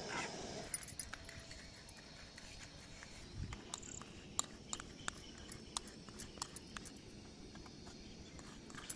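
Light scattered clicks and taps of a metal spoon against paper cups and a steel plate as hot sugar syrup is spooned into the cups, after a brief scrape of stirring in the pan at the start. A soft bump about three and a half seconds in; faint outdoor background throughout.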